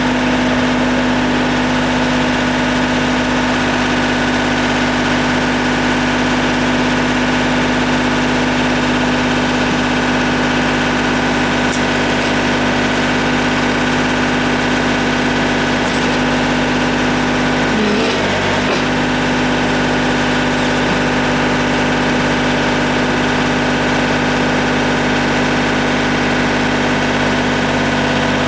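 John Deere compact tractor's diesel engine running steadily at idle, with a brief change in its note about two-thirds of the way in.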